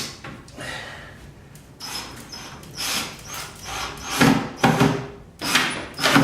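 A screw being driven through a cabinet door hinge into wood: irregular creaks, rubs and knocks of wood and metal, growing louder and more frequent about four seconds in.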